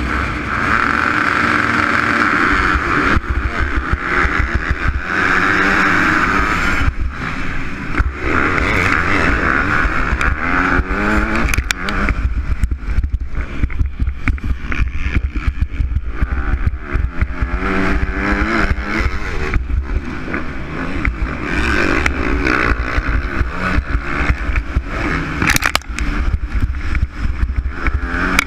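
MX2-class motocross bike engine heard from on board, revving up and dropping back again and again as it accelerates and shifts, with wind noise and knocks from the rough track.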